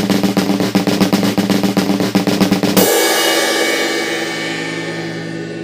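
Intro music: a fast snare drum roll over held low notes, ending nearly three seconds in on a loud crash that rings and slowly fades.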